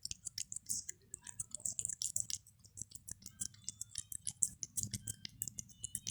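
A cat eating fast and greedily: quick, wet chewing and lip-smacking clicks, several a second without a break.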